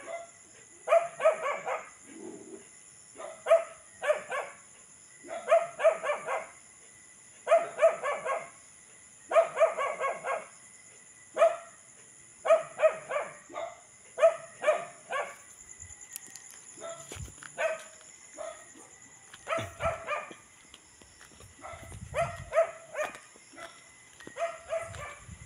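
A dog barking over and over, in quick runs of two to four barks about every second or two. The runs grow sparser and softer in the last third.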